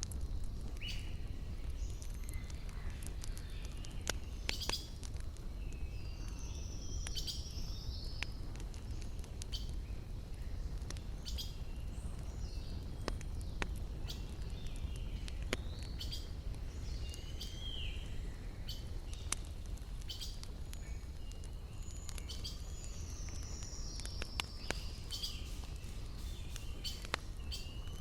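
Wood campfire crackling with scattered sharp pops over a low steady rumble, while birds chirp and call repeatedly in the background.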